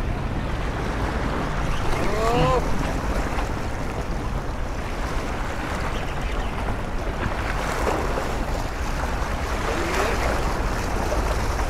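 Steady wind buffeting the microphone over small waves lapping and splashing against the shoreline rocks.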